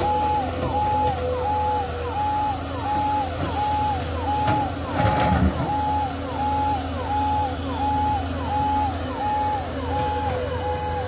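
Ambulance siren sounding in a repeating rise-hold-fall cycle, about one and a half cycles a second, over the steady running of heavy engines from the excavator and truck at work. A short, louder noise breaks in about five seconds in.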